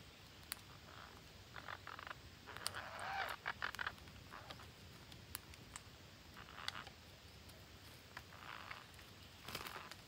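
Faint rustling and sharp clicks of parakeets moving and pecking in a leafy shrub, with a few soft short calls. The sounds come thickest about a third of the way in and again just before the end.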